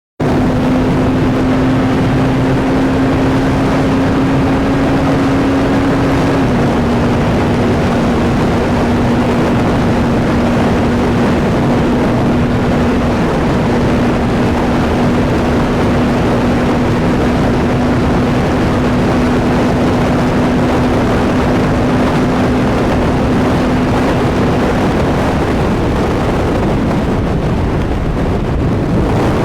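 CFMoto 675SR-R motorcycle's inline-three engine running at a steady highway cruise under heavy wind rush on the microphone. Its steady note drops slightly in pitch about six seconds in and fades under the wind near the end.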